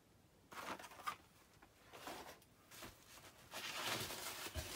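Bubble wrap and plastic packaging rustling as hands dig through a cardboard box: a few brief handling sounds, then a longer crinkling near the end.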